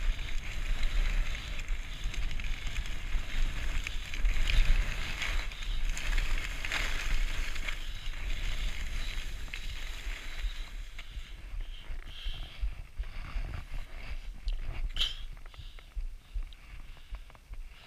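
Skis hissing and scraping over packed snow, with wind rumble on the microphone. The hiss fades and breaks up over the second half, and there is one short, sharp high squeak near the end.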